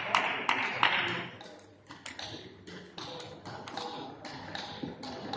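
Table tennis ball clicking in a hall. For about the first second there is a quick, even run of clicks, about three a second. After a short lull, the irregular clicks of a doubles rally follow: the ball striking bats and the table.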